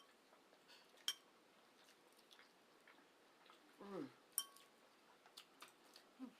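Quiet eating sounds: a few sharp small clicks and smacks of chewing, with a short 'mmm' that falls in pitch about four seconds in.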